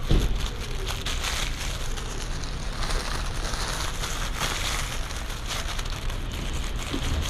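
Steady street noise: a rush of traffic with a low rumble underneath, and a sharp knock right at the start.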